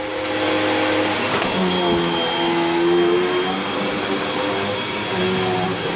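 Vacuum cleaner running, its motor hum steady with the pitch of its tones shifting now and then.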